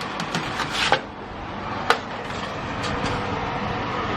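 Kitchen clatter of pans being handled: several light clicks in the first second and one sharp click about two seconds in, over a steady low rumbling hum.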